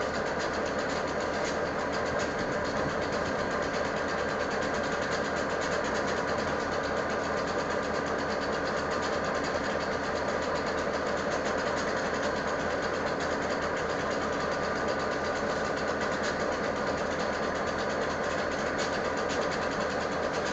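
Diesel-electric locomotives idling steadily while stopped, an even engine hum with steady tones that does not change.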